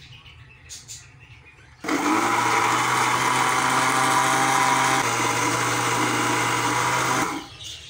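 Westpoint Super Blender motor grinding chutney in its jar: it starts suddenly about two seconds in, runs steadily for about five seconds, then cuts off.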